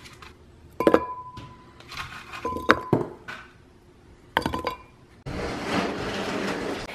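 Frozen banana chunks dropped into a glass blender jar, clinking against the glass several times, some knocks leaving a short ringing tone. Near the end a steady rushing noise lasts about a second and a half.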